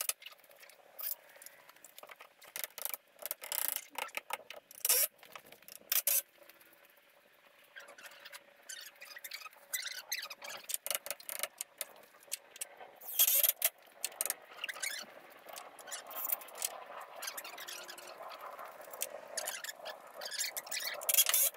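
Hands-on framing work on a 4x4 lumber frame: irregular short clicks and knocks as a cross support board is fitted and fastened. The work is busiest about thirteen seconds in.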